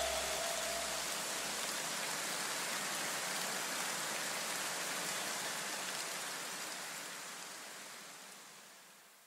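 An even, rain-like hiss that fades gradually to silence near the end, with a low bass note dying away in the first couple of seconds.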